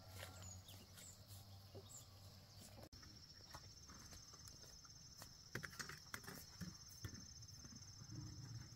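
Faint rustling and crackling of dry maize stalks and leaves as someone pushes through them; after about three seconds, a steady high, finely pulsing insect trill takes over.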